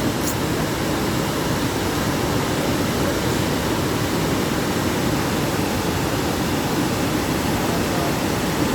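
Steady rushing noise with no breaks or rhythm, heaviest in the low end.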